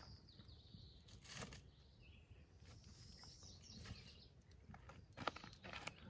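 Near silence, with a couple of faint crunches of feet shifting on gravel.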